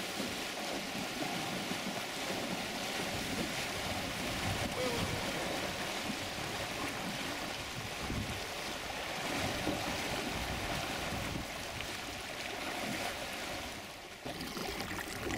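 Fast river current rushing steadily around an aluminum boat being worked upstream through rapids.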